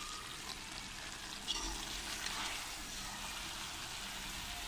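Potato and aubergine curry sizzling steadily in oil in a pan while being stirred and turned with a slotted spoon, a couple of soft scrapes coming through the hiss. It is the bhunai stage: the softened vegetables are fried down in their own tomato juices.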